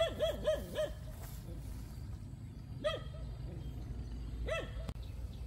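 A dog barking: four quick barks right at the start, then a single bark about three seconds in and another about four and a half seconds in, over a steady low rumble.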